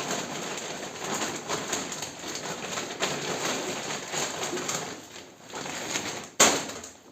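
Rustling and handling of shopping packaging, with a sharp knock a little over six seconds in.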